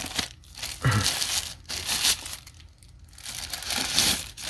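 Packaging crinkling and rustling in uneven stretches as a new power bank is unwrapped by hand.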